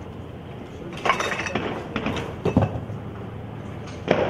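Sharp cracks and clinks over a steady low background: a quick cluster about a second in, two louder strikes past the middle, and one more near the end.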